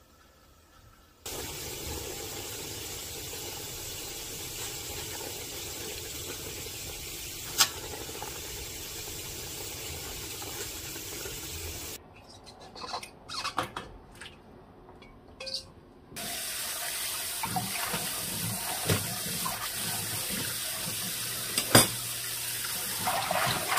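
Kitchen tap water running into a stainless steel sink to rinse blanched greens, with a few sharp metal clinks. About twelve seconds in the water stops for a few seconds of handling and knocking of the colander and bowl, then runs again.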